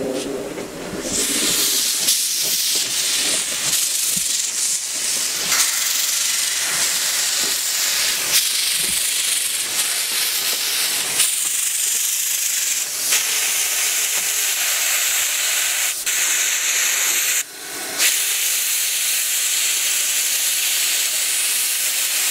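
Small 0-6-0 steam switcher locomotive hissing steam loudly and steadily from about a second in, with a brief break around 17 seconds in and a few faint knocks.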